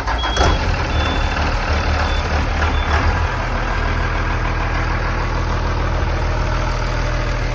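The 2000 Blue Bird TC1000 HandyBus's engine idling just after starting. A high beep goes on and off for the first three seconds or so, then the idle settles and runs steady.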